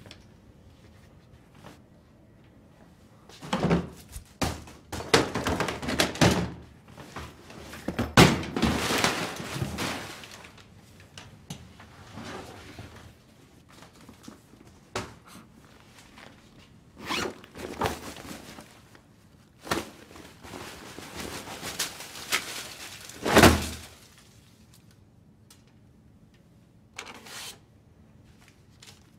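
Objects being rummaged through on a metal storage shelf: irregular knocks, thunks and the noisy shuffling of boxes and items being moved, with one heavier thud about 23 seconds in.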